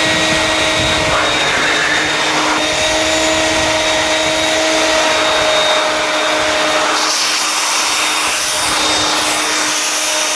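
Vax 221 wet/dry canister vacuum's two-stage motor running steadily with a whine, in carpet-washing mode. The rushing sound shifts about a second in and again about seven seconds in.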